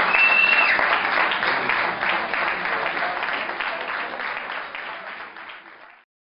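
Theatre audience applauding, a dense patter of many hands clapping, with a brief high tone near the start. The applause fades gradually over the last few seconds and then cuts off.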